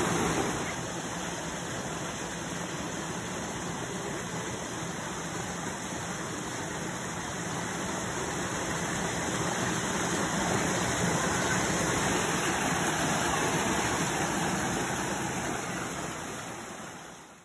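Rain-swollen creek water rushing steadily, fading out near the end.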